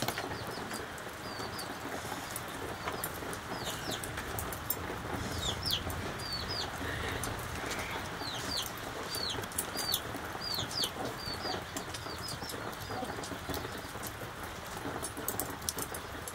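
Small birds chirping: a run of short, falling, high-pitched chirps from about half a second to eleven seconds in, over a steady background hiss with scattered faint clicks.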